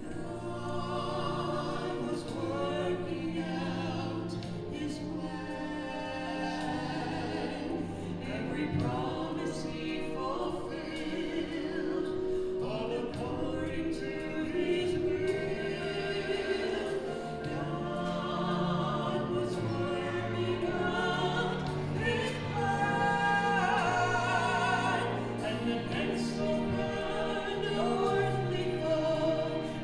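Choir singing with instrumental accompaniment, sustained notes with vibrato over a steady bass.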